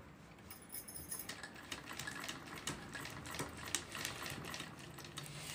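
Sewing machine stitching a patch onto quilted fabric: a rapid, even run of needle-and-mechanism clicks that starts about a second in and stops just before the end.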